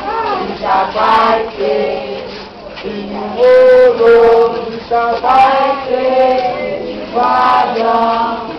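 A group of men and women singing together in chorus, with long held notes.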